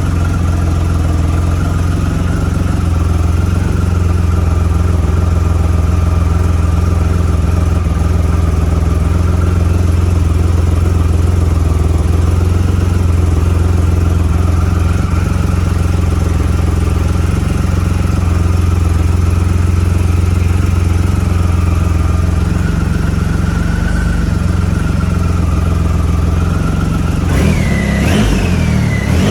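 2009 Triumph Rocket III's 2.3-litre inline three-cylinder engine running at a steady idle after its first start on a new battery. Near the end it is revved a few times, pitch rising and falling.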